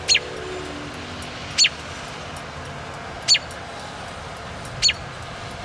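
American robin giving a short, sharp high call four times, about every second and a half, each call dropping quickly in pitch.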